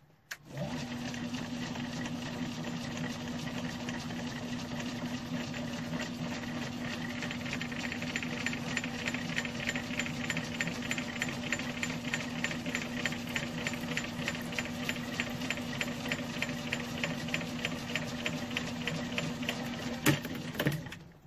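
Metal lathe running, a steady motor hum with a rhythmic ticking about five times a second. Near the end comes a sharp crack, and the machine stops.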